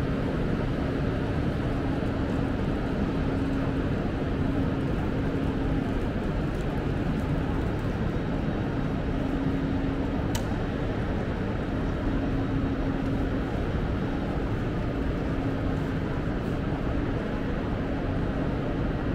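Steady rumbling background hum of a large railway station hall, with a constant low drone and one sharp click about halfway through.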